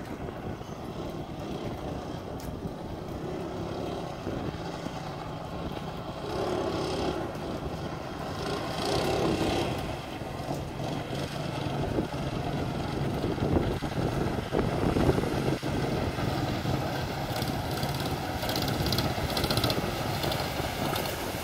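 A jon boat's 12 hp LCT engine running steadily at speed with two people aboard, growing gradually louder as the boat approaches, with wind buffeting the microphone.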